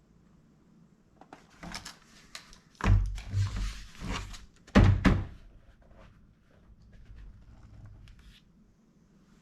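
Laptop parts being handled and set down on a work surface during disassembly: light clattering knocks, then two heavy thunks about two seconds apart, then quieter handling noise.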